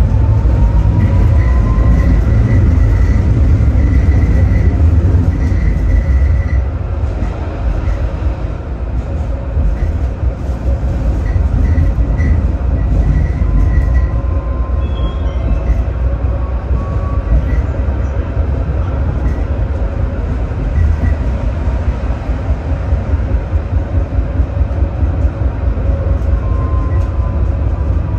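Electric tram running along its track, with a heavy, steady rumble from the wheels and running gear. The traction motors whine, rising in pitch as it gathers speed near the start and again about halfway through, and falling as it slows near the end.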